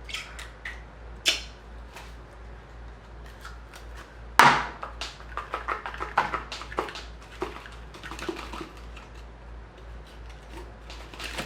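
Clear glue-based glitter slime being handled and stretched: a run of small sticky clicks and pops, with one much louder snap about four and a half seconds in.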